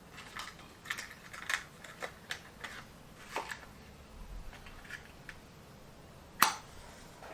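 Matches being handled and struck to light a hand gas torch: a string of small clicks and scrapes, with one sharp, louder strike near the end.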